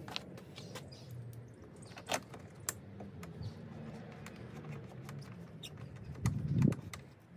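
Scattered light clicks and taps from handling plastic car trim parts and tools, with a brief low rumble about six seconds in that is the loudest moment.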